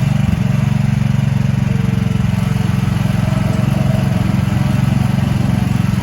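Small four-stroke gasoline engine of a mini excavator, about 420 cc and 13 hp, running steadily at an even speed just after being started.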